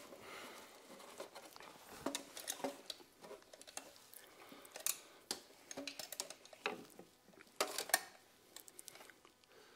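Hand tools working small fasteners: irregular metallic clicks, taps and scrapes of a screwdriver on slotted screws and a spanner on nuts and bolts, with a few sharper clicks near the end.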